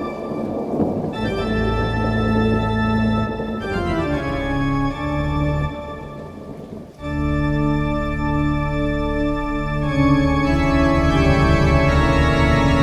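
Organ music playing slow, sustained chords that change every few seconds. It dips in the middle, then comes back louder with a pulsing low part about ten seconds in.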